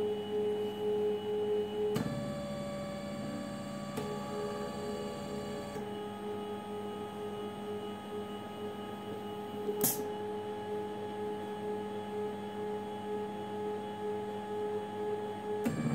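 Stepper motors driving a PLC-controlled gantry gripper robot, giving a steady electronic whine of several held tones. The tones jump to new pitches a few times as the axes change speed or move to the next position. One sharp click comes about ten seconds in.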